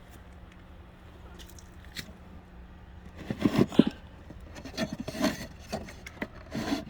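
Hands working at a wooden bird house: a few light clicks, then from about three seconds in irregular wooden scraping and rubbing, the loudest near the middle, as the house is opened.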